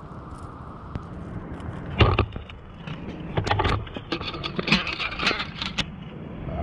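A rapid run of sharp clicks, knocks and scrapes from gear being handled close to the microphone, starting about two seconds in, over a steady low rumble.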